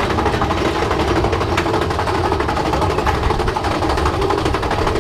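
Roller coaster mine train rattling and rumbling along its track, heard from on board, a steady clattering run with wind noise.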